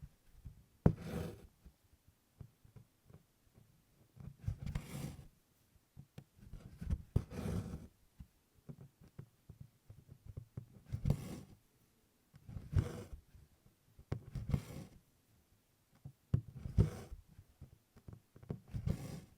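Stranded cotton embroidery floss being drawn through 24-count Congress canvas during tent stitching: a short rasping pull, sometimes with a click as the needle pierces the canvas. It repeats about eight times, roughly every two seconds.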